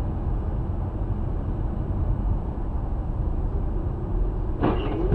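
Steady road and engine rumble of a car driving in traffic, heard from inside the cabin through a dashcam microphone. A short pitched sound with a wavering pitch rises out of it near the end, followed by a sharp click.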